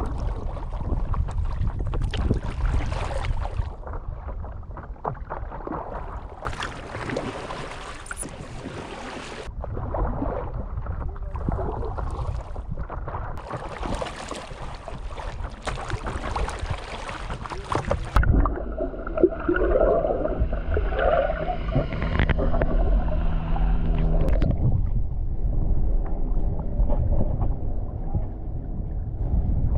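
Water sloshing and splashing with wind noise, as from paddling a stand-up paddleboard on open water. About two-thirds of the way in, a steady hum with several tones joins the water sound.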